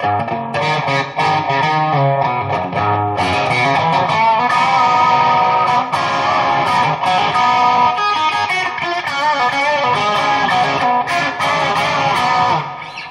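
2005 Squier Telecaster rewired to Esquire wiring, its bridge pickup played through a Peavey Vypyr amp on a Fender Twin model, with overdrive and a little reverb. The guitar plays a run of picked notes and chords in the middle switch position, with the tone control rolled up a little. The playing dies away just before the end.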